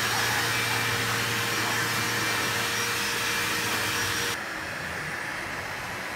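Electric heat gun running, a steady blowing hiss over a low motor hum; it drops in level about four seconds in.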